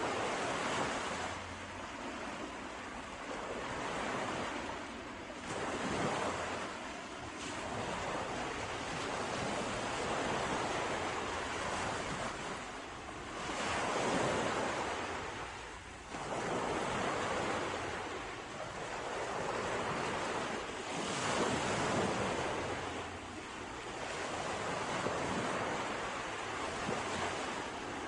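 Sea waves breaking and washing on the shore, the surf swelling and easing every few seconds, with some wind noise.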